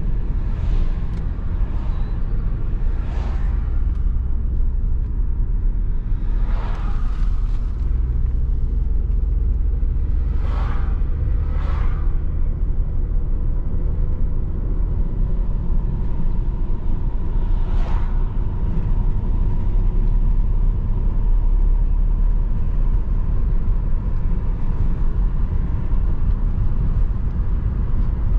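Steady low rumble of road and engine noise from a car being driven, with several brief rushing swells over it.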